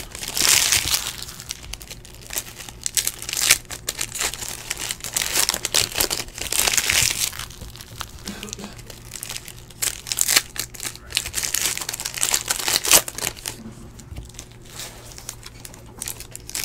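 Shiny plastic-foil trading card pack wrappers crinkling and tearing as packs are ripped open by hand, in irregular bursts with small clicks of cards being handled between them.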